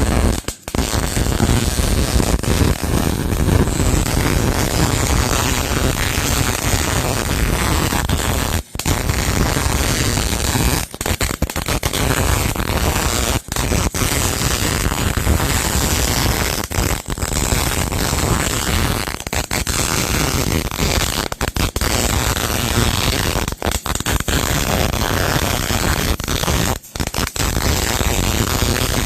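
Welding arc crackling and sputtering steadily as a bead is run along the lawn roller's seam, cutting out briefly several times where the weld is stopped and restarted.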